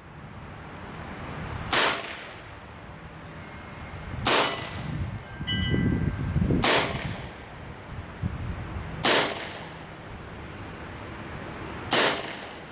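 Evanix Viper semi-automatic PCP air pistol in .22 calibre firing five single shots, roughly two and a half seconds apart, each a short sharp report.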